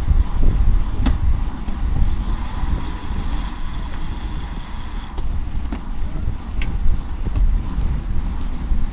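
Wind rushing over the microphone of a camera riding on a racing bicycle, a steady low rumble with a thin high hiss for a few seconds in the middle and a couple of sharp clicks.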